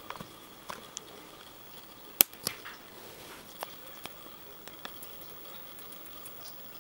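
Irregular sharp cracks and clicks of a hairy puffer's beak crunching a crayfish's shell, the loudest a single crack about two seconds in, over a faint steady whine.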